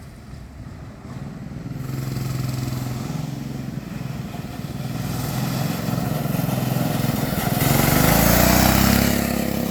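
Coleman minibike's small four-stroke engine running at speed as the bike is ridden. It grows louder from about two seconds in and is loudest near the end, as the bike comes close.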